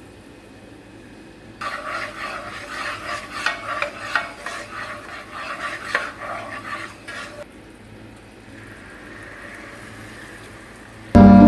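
Food sizzling in a pan while being stirred with a utensil, with quick scraping and clattering for about six seconds, then a fainter sizzle. Music comes in loudly just before the end.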